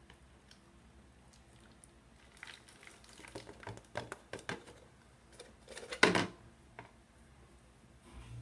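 Light clicks and knocks of a clear plastic tub being handled, ending in one louder knock about six seconds in.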